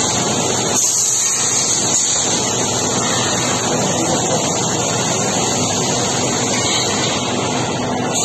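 Steady factory-floor machinery noise: a constant rushing din with a high hiss over it, level and unbroken.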